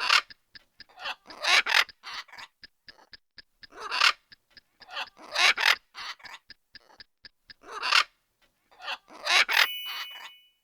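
An animal's harsh, raspy call, repeated several times at uneven intervals of one to two seconds, with faint quick clicks between the calls.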